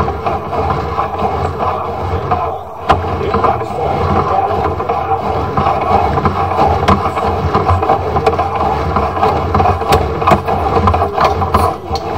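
Sewer inspection camera's push cable being pulled back through a clay drain line: a steady scraping rumble with a low hum and scattered clicks, briefly dropping about two and a half seconds in.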